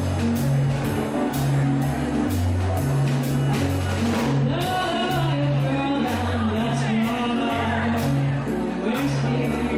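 Music with a walking bass line and a steady beat, with a voice singing over it from about halfway through.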